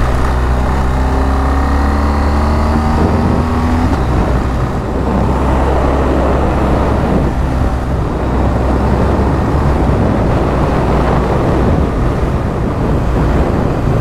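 BMW GS boxer-twin adventure motorcycle riding on a gravel road. Its engine note rises steadily for the first four seconds as it accelerates, then is mostly covered by wind and tyre noise on the gravel.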